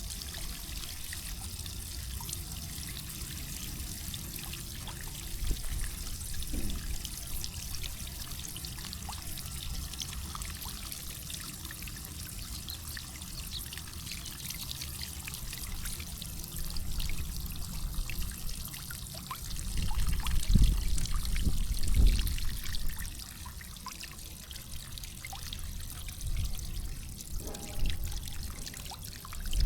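Water trickling and pouring steadily from an opened irrigation line. A few low rumbles come about twenty seconds in.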